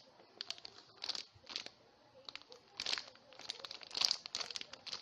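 Irregular crinkling and rustling of plastic as squishy toys are handled, in short bursts, loudest about three and four seconds in.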